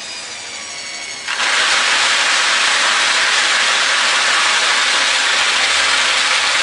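A small motor whines as it turns the Olds Elevator's rotating casing around its fixed screw. About a second in, a loud steady hiss takes over: seed carried up the clear column spills out of the top and rains down onto the shroud and into the bucket.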